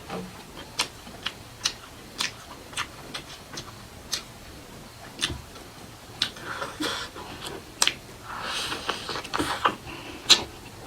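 Close-miked mukbang eating sounds: irregular wet mouth clicks and lip smacks of someone chewing soft food, with two short breathy, hissy stretches about six and nine seconds in.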